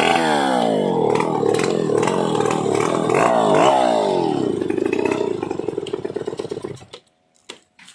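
Stihl 070 two-stroke chainsaw from 1980 revving in quick throttle blips, then settling and winding down, its firing slowing until it dies away about seven seconds in.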